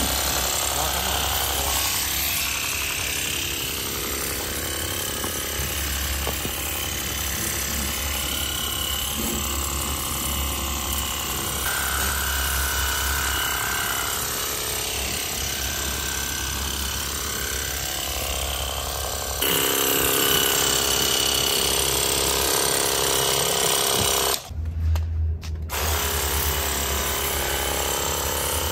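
VARSK VAR-910 20 V cordless pressure washer running: its small electric pump motor buzzes steadily under a hiss of the water jet. Near the end the sound drops out for about a second, then the buzzing resumes.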